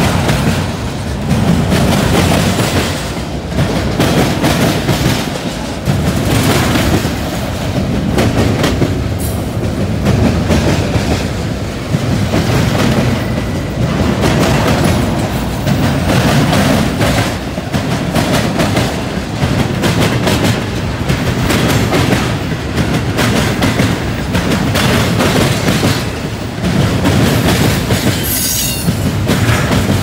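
Intermodal freight train cars rolling across a railroad diamond, the wheels clacking and banging over the crossing in a repeating pattern that swells and dips as car after car passes. There is a brief high wheel squeal near the end.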